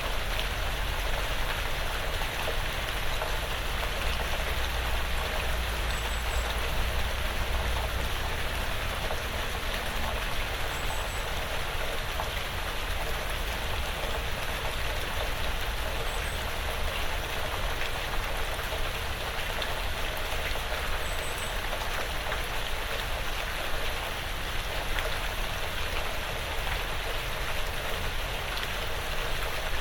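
Steady rain falling on a porch roof and the surrounding woods, an even, unbroken hiss of drops.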